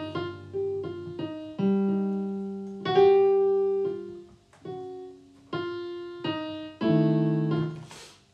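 Piano playing slow jazz: single notes and sustained chords, each struck and left to ring, with a full chord about seven seconds in. A short burst of noise comes at the very end.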